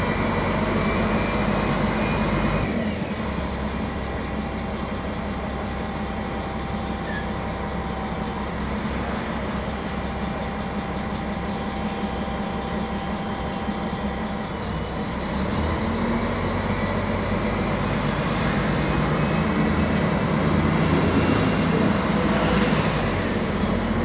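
Mercedes-Benz OM-457 LA diesel engine of an articulated O500MA city bus heard on board while driving. The engine eases off about three seconds in and picks up again from about halfway through, with a few short high squeaks in between.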